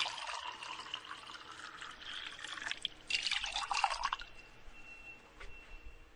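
Water running and splashing in two stretches, the second louder and stopping about four seconds in, then dying down to a faint trickle with a thin steady high tone.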